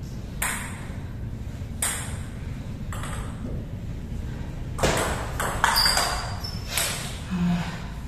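Table tennis ball clicking off bats and the table: two single clicks, then a quick rally of several hits about five seconds in.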